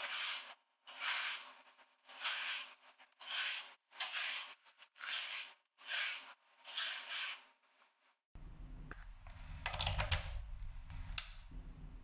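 Soft-bristled brush scrubbing across the perforated plastic cover of a Dyson fan in short strokes, about eight strokes at roughly one a second. About eight seconds in the brushing stops, and a steadier low background with a few brief scrapes follows.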